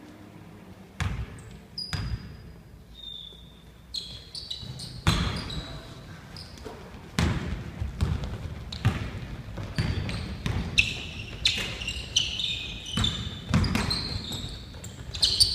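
Basketball bouncing on a hardwood gym floor, a couple of single bounces at first and then frequent bounces from about five seconds in as play runs on, with short high sneaker squeaks from the players' shoes.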